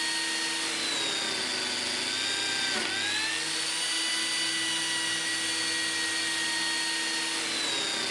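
Lamello Zeta P2 joining machine's motor running with a steady whine while it cuts the P-System groove; about three seconds in its pitch dips sharply and recovers.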